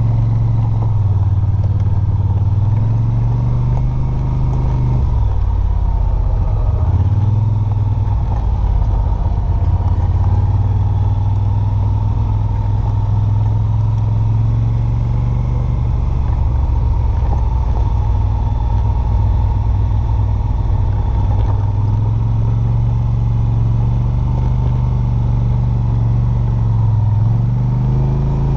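Side-by-side off-road vehicle's engine running as it drives along a dirt trail, its pitch dipping and rising with the throttle about five seconds in and again near the end.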